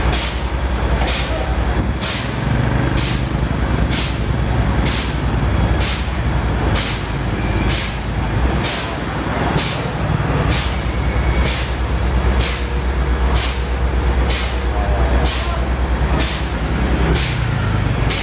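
Fire truck's diesel engine running steadily with a deep drone, overlaid by a short sharp hiss that repeats about once a second.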